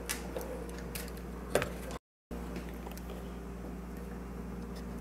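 A few light clicks and taps in the first two seconds from hands handling small electronic boards at a laptop. The sound then cuts out for a moment, followed by a steady low hum of room tone.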